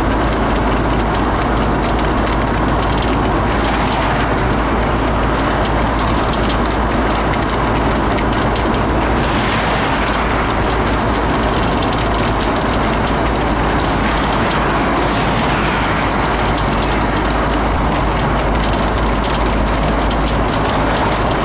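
Loud, steady rush of wind and road noise from a moving vehicle, with a rapid clatter of horses' hooves trotting on tarmac.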